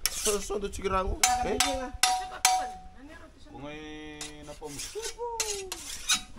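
Steel machete blades clinking and ringing as they are sharpened and handled, with sharp metallic clicks throughout and one blade ringing out for about a second. Brief voices come in near the middle and end.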